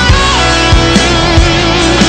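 Hard rock band music: an electric guitar plays a lead line of held, bending notes over bass and drums.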